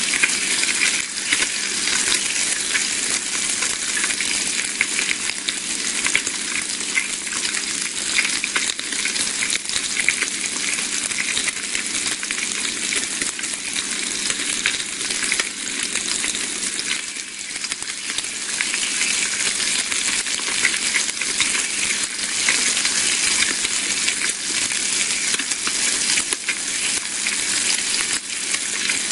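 Bacon sizzling in a frying pan: a steady, dense hiss of fat spitting, full of fine crackles.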